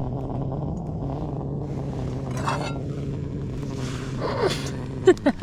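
Portable gas camping stove burner running with a steady low roar, a few faint short sounds over it.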